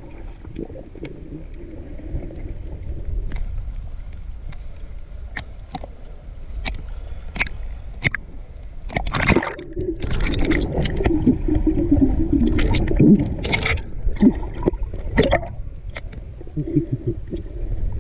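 Underwater sound picked up by a submerged camera: a low rumble of moving water with scattered sharp clicks. A louder stretch of water noise runs from about nine to fourteen seconds in.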